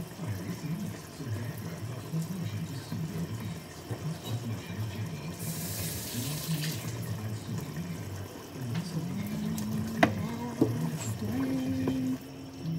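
Kitchen tap running for about a second and a half midway, rinsing out the last of a jar of pasta sauce, over a television talking in the background. A single sharp knock near the end.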